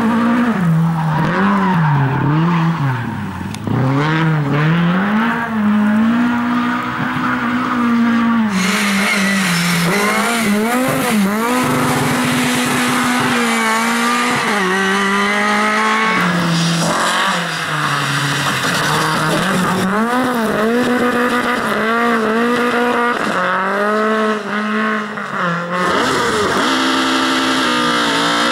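Lada rally car engines revving hard, the pitch climbing and dropping again and again with gear changes and lifts off the throttle. Several passes are cut together, the sound changing abruptly about a third of the way in, just past halfway and near the end.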